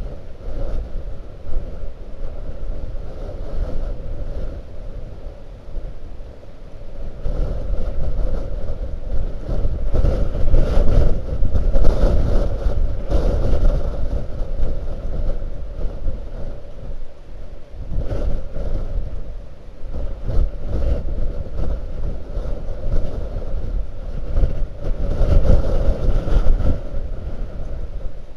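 Blizzard wind blasting across an outdoor microphone: a deep, buffeting rumble that swells in two long gusts, about eight seconds in and again about eighteen seconds in.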